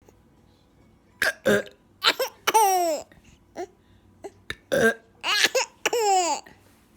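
Baby laughing in a string of short bursts and long high squeals that fall in pitch, with quick catching breaths between them.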